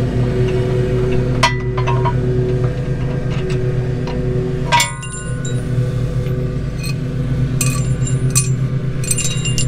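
Sharp metallic clinks of a wrench and bolt at a shock absorber's lower mount: one about a second and a half in, a louder one near the middle, and a quick cluster near the end. Under them a lawn mower engine hums steadily.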